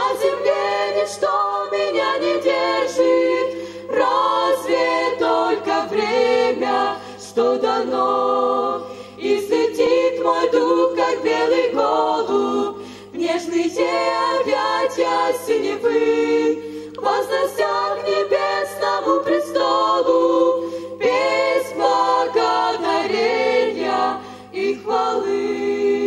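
Small group of young women singing a Christian song in harmony, unaccompanied, phrase after phrase with short breaths between, through microphones.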